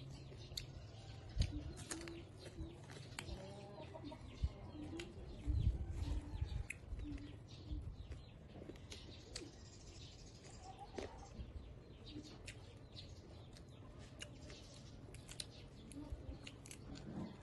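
Close-miked eating sounds: mouth clicks and smacks from chewing sticky rice and dried fish eaten by hand, with a few soft knocks. A chicken clucks softly in the background several times in the first half and again around ten seconds in.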